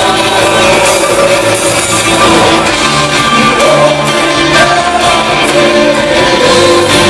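Live Christian band playing loudly, with several singers on microphones singing over the band.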